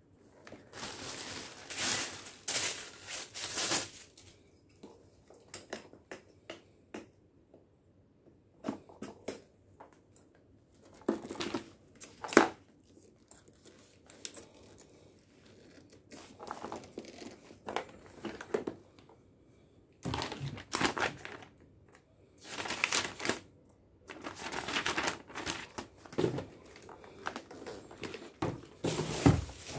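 Hands handling and fitting together the plastic parts of a Black & Decker steam mop: irregular rustling and scraping, with a few sharp clicks as pieces are pushed into place.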